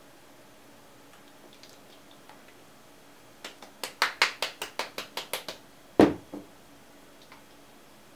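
A small bottle of hobby paint shaken hard by hand to remix paint that has started to separate: a quick run of sharp clicks, about six a second for two seconds, then one heavier knock about six seconds in. Faint handling ticks come before the shaking.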